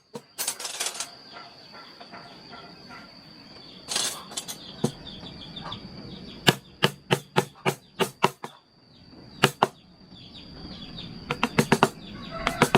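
Mallet striking a wood-carving chisel in runs of sharp knocks, about three a second, with the chisel scraping and paring wood between the strikes.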